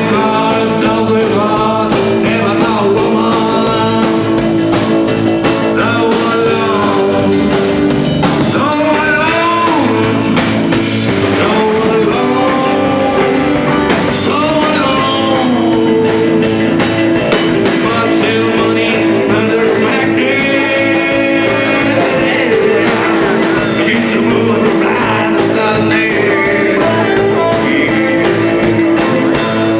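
Rock band playing live, a singer over guitar-driven rock music.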